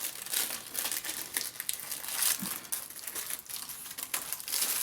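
Plastic packaging of a diamond painting kit crinkling and rustling as it is handled and opened by hand, a dense run of irregular crackles.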